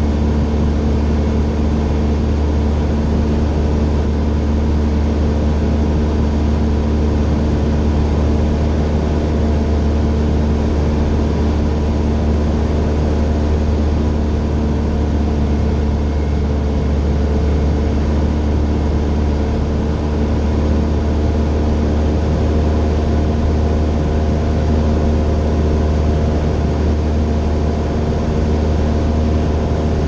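Grumman Tiger's 180 hp four-cylinder Lycoming engine and propeller running steadily in flight, heard from inside the cabin as a loud, even drone with a deep hum and a steady pitched tone that doesn't change.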